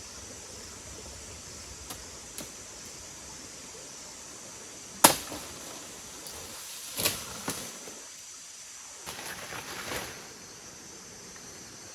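A few sharp knocks or chops, the loudest about five seconds in, then another about two seconds later and a short cluster near the end, over a steady background hiss.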